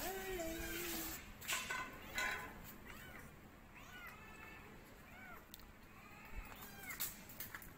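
A cat meowing repeatedly: one longer meow at the start, then a string of short, higher mews, with a couple of brief rustles or knocks in between.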